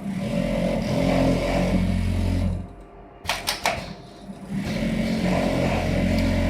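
Automatic patch pocket sewing machine running in two stitching runs of about two and a half seconds each, a steady mechanical hum, with a few sharp clacks in the pause between them.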